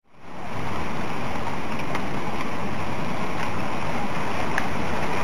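Steady rushing of tsunami floodwater churning through wrecked houses, fading in over the first second, with a few faint sharp cracks of breaking timber.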